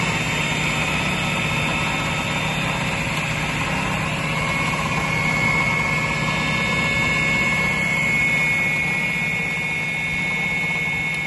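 Sliding table saw with a 3 HP motor and a 254 mm blade running without a cut: a steady hum, with a thin high whine coming in about a third of the way through.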